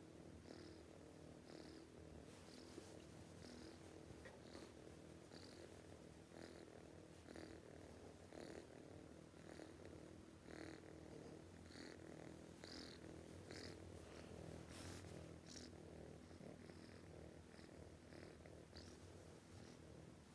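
Sleeping cat snoring: a faint, steady rumble with a soft wheezy hiss of breath about once a second.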